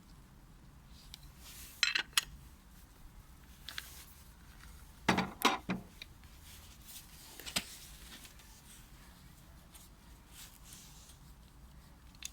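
Scattered clicks and clacks of hard plastic and metal parts being handled while a cordless angle grinder is readied, with a pair of sharp knocks about two seconds in and a louder cluster about five seconds in.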